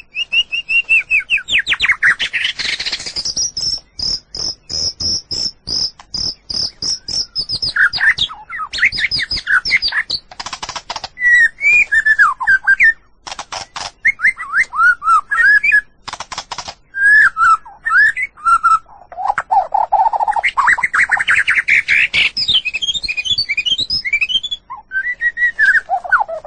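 White-rumped shama (murai batu) singing a long, varied song without pause: a fast run of rapid repeated high notes early on, then changing whistled phrases, trills and sharp clicks, with lower, fuller notes about three quarters of the way through.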